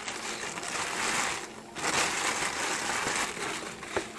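Packaging rustling and crinkling in two long stretches as the model-aircraft engine is unwrapped and lifted out of its box, with a short click near the end.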